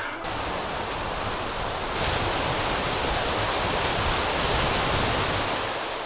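Steady wideband rushing noise, a little louder from about two seconds in and fading out near the end.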